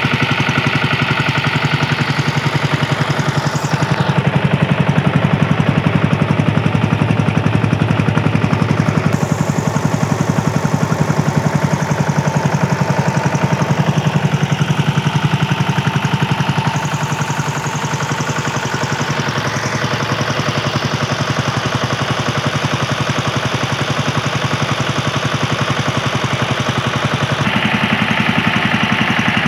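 Engine of a homemade motorcycle-based crop-sprayer rig running steadily with a rapid, even beat, driving a piston spray pump by V-belt.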